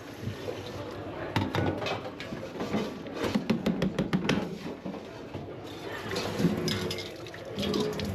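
Restaurant kitchen clatter: plates, pans and utensils clinking and knocking in quick runs, over a steady kitchen background noise.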